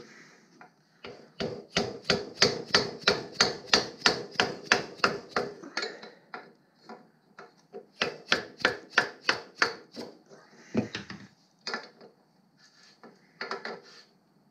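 Rapid, evenly spaced metal clicking, about five clicks a second, from a wrench worked on the exhaust-pipe nut at the cylinder of a Sachs 50cc two-stroke moped engine as the exhaust is loosened for removal. The clicking comes in two runs, about four seconds and then two seconds long, with a few scattered clicks near the end.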